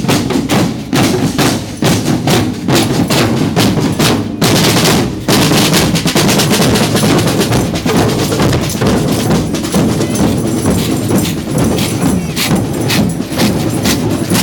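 A marching drum band playing a steady, loud beat of snare and bass drums.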